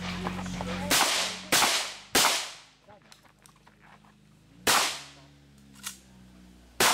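Saiga-12 semi-automatic shotgun firing: three quick shots about half a second apart, a pause, another shot, then a fainter crack and one more shot near the end.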